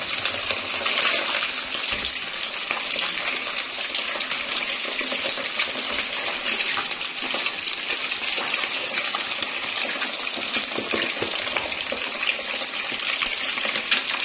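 Fish frying in hot oil in a kadhai: a steady, dense crackling sizzle.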